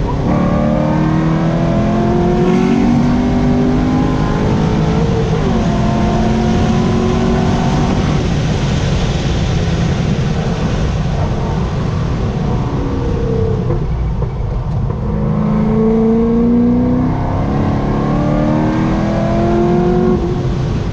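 Chevrolet Corvette C6 Z06's 7.0-litre LS7 V8 running hard under track driving, its pitch climbing through each gear and dropping at the shifts, easing off and falling about halfway through before pulling up again. Wind and tyre noise run underneath.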